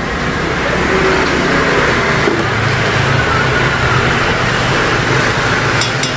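Seblak broth simmering in a wok over a gas burner: a steady bubbling and burner noise, with a few light clinks of a metal spoon against the pan near the end.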